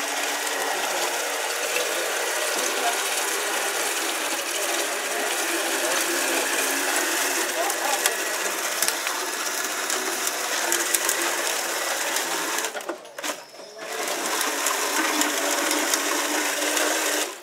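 Tyrolienne roughcast machine running, its spinning tines flicking mortar onto the rock wall, run with something in place of its usual hand crank: a steady mechanical clatter. It pauses briefly about thirteen seconds in, runs on, then stops right at the end.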